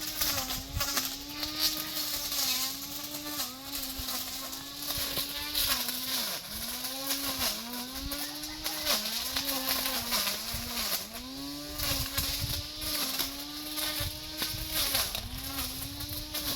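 Brush cutter engine running at high speed, its pitch dipping briefly and recovering about once a second as the blade takes load while cutting.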